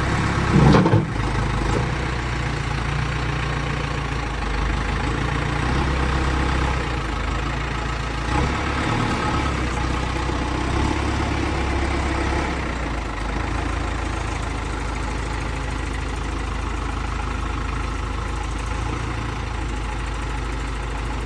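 Diesel engine of a backhoe loader or tractor running steadily, with a brief loud burst about a second in.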